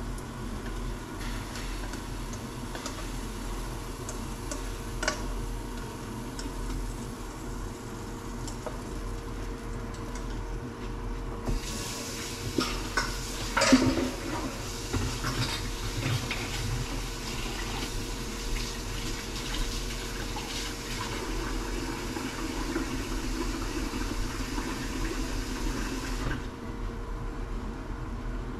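Kitchen tap running into a sink for about fifteen seconds, starting and stopping abruptly, with pots or dishes clinking and knocking as it starts. Before and after it there are scattered light kitchen clicks over a steady low appliance hum.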